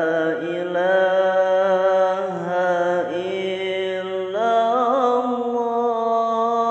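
A man singing an Arabic devotional song (sholawat) in long, drawn-out held notes, with a new phrase starting about four seconds in and a wavering, ornamented pitch shortly after.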